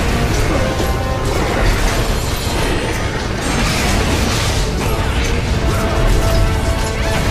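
Soundtrack music with held notes playing over a dense, continuous wash of noisy action sound effects.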